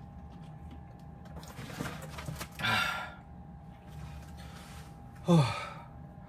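A man gulping beer from a can, then letting out loud vocal sounds of relish: a rough 'ahh' about two and a half seconds in and a louder one near the end that falls in pitch.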